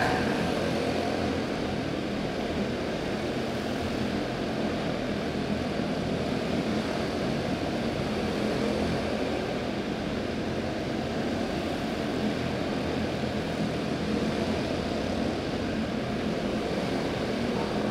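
A pack of Junior Honda quarter midget race cars running laps together, their small Honda four-stroke single-cylinder engines making a steady, blended drone with small swells as the cars pass.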